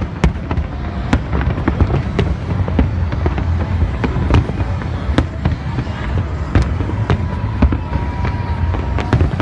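Large aerial fireworks display: a continuous run of irregular bangs and crackles over a deep, constant rumble of shell bursts. A thin steady whistle-like tone rises above it for about two seconds near the end.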